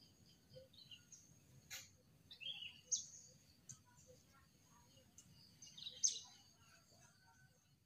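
Faint birdsong: scattered short chirps and calls from small birds, the strongest about three and six seconds in, with one sharp click just under two seconds in.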